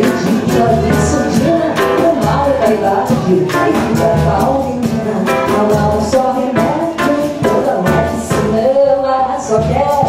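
Live xote played by a small Brazilian band: surdo on the beat, pandeiro, electric guitar and trombone.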